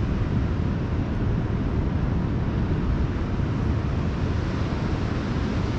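Wind buffeting the microphone: a steady, fluttering low rumble under a rushing hiss.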